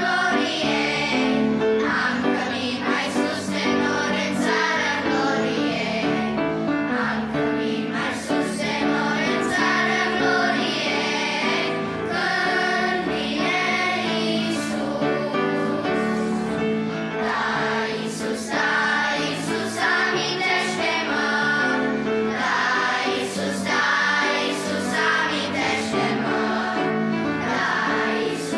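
Children's choir singing a Romanian hymn with piano accompaniment.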